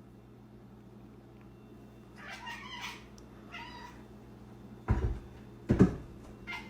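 Cat meowing softly twice, followed by two low thumps.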